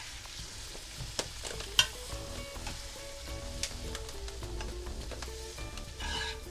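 Strips of onion, green pepper and carrot sizzling in oil in a frying pan while a metal slotted spoon stirs and lifts them out. There are a few sharp clicks of the spoon against the pan, the loudest about two seconds in.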